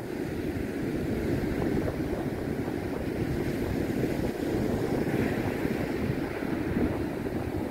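Distant rumble of a SpaceX Falcon 9's first-stage engines climbing after launch, a steady low roar full of crackle that swells at the start and holds.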